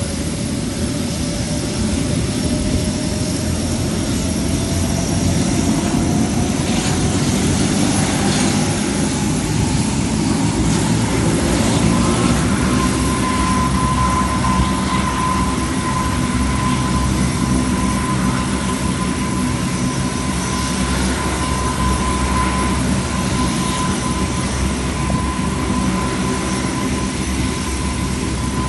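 Four Allison T56 turboprop engines of a Lockheed P-3K2 Orion running on the ground: a steady low drone with a thin whine that rises in pitch over roughly the first twelve seconds, then holds steady.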